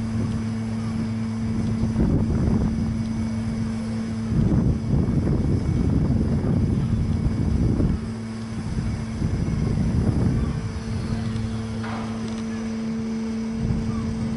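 Steady hum of a drawbridge's drive machinery as the deck is lowered to close, with loud gusts of wind buffeting the microphone in the middle seconds.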